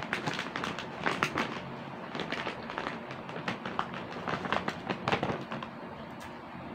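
Plastic snack bag crinkling as a hand rummages through the chicharon inside, a dense run of irregular sharp crackles that thins out near the end.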